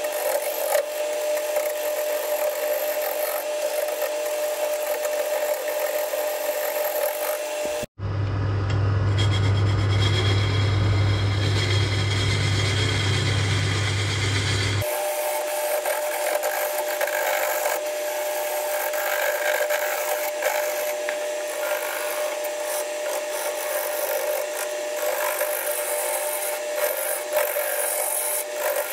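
A gouge cutting into an ash log spinning on a 1970s Coronet wood lathe: a continuous scraping of the tool against the wood over the steady hum of the lathe. The log is being roughed down and its bark taken off. The sound breaks off abruptly about eight seconds in and changes character around fifteen seconds.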